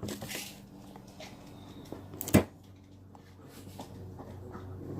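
A single sharp knock about two and a half seconds in, over a faint steady hum.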